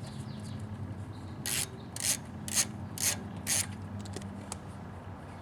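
Ratchet wrench turning out the 7mm screws of a generator's back cover: five short ratcheting strokes about half a second apart, over a steady low hum.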